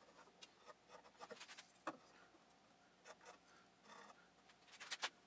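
Faint pencil strokes on wood: short scratches and light taps as lines and hatch marks are drawn on a board, with a quick run of strokes near the end.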